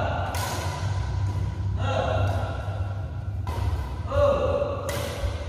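Background music: a series of held notes, each lasting a second or so, over a steady low hum.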